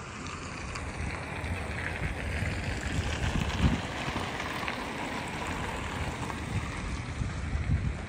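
Wind gusting on the microphone, low rumbles over a steady rushing hiss.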